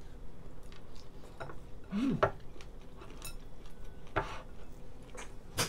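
Scattered small cracks and clicks of cooked shellfish shells being peeled by hand, with light clinks of plates and bowls.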